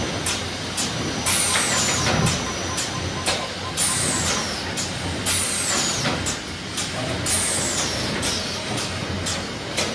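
Automatic turner for laminated corrugated board running at its discharge section: a steady machine noise with frequent sharp clacks. High squeals falling in pitch recur about every two seconds.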